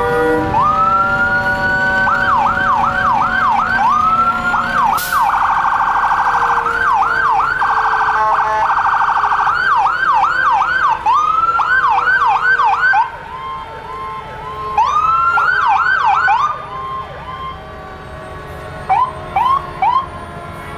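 Electronic fire truck sirens going by: a rising wail breaking into a fast yelp of about two sweeps a second, a dense rapid warble from about five to eight seconds in, then yelping again, with a second, fainter siren overlapping. The sirens fall away about two-thirds of the way through, returning only as a couple of short yelp bursts near the end.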